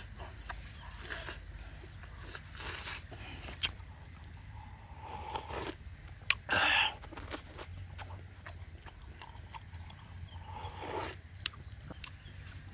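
A person eating boiled pig leg with their hands, heard as close-up chewing, lip-smacking and sucking on the meat. About six seconds in comes a loud slurp of broth from a clay bowl.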